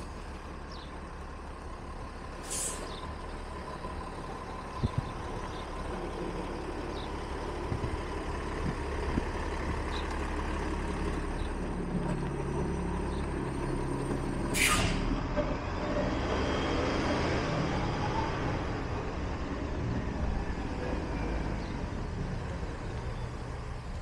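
Street traffic dominated by a heavy vehicle's engine running close by, growing louder about six seconds in, with two short hisses of air-brake release, one about two and a half seconds in and a louder one about fifteen seconds in.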